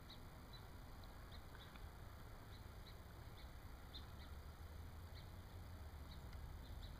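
Small songbirds giving faint, short, high chirps, scattered irregularly, over a low steady background rumble.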